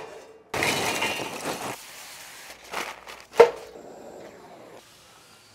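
Steel parts of an offset smoker being handled: about a second of harsh metal scraping, then two clanks, the second and louder one about three and a half seconds in ringing briefly.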